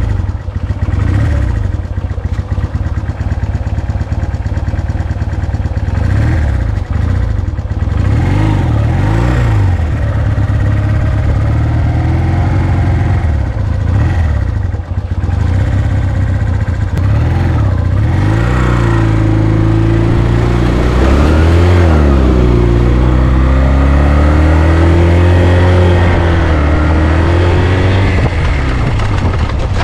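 1996 Honda CD125T Benly's small parallel-twin four-stroke engine being ridden hard off-road, its note rising and falling over and over as the throttle opens and closes.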